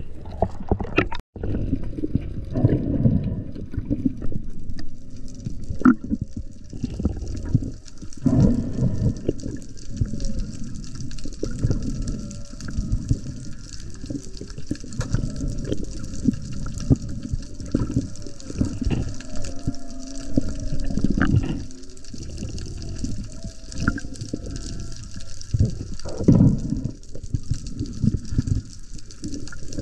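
Seawater sloshing and bubbling around a camera in the sea: a dense low rumble broken by frequent small knocks and splashes, with a faint high hiss coming in after a few seconds.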